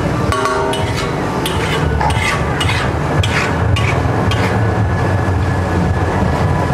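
A metal spatula scraping and clanking on a hot griddle while food fries, with many quick strikes over a steady sizzle, and a low rumble beneath.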